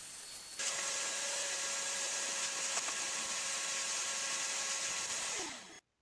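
Vacuum cleaner running steadily as its hose nozzle sucks grit and rust out of the inside of a wheelbarrow tire and rim. It starts suddenly under a second in, and its pitch falls just before it cuts off near the end.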